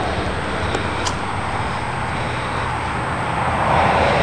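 Steady road traffic noise that swells louder near the end.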